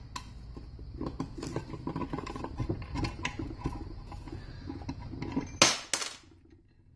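A homemade press fixture, a block of wood held down by bolts and nuts, being undone and lifted off a transmission rear housing: many small metallic clinks and knocks of nuts, washers and bolts against the wood and cast iron, then two short loud scrapes about five and a half seconds in.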